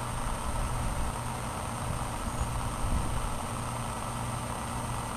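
Steady low mechanical hum that swells and eases slightly, over a faint even hiss.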